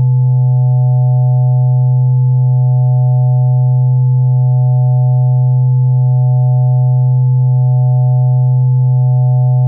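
Computer-synthesized tone generated from a Möbius strip's shape: a steady, loud low hum with fainter higher tones above it, one of which wavers slowly about once every two seconds.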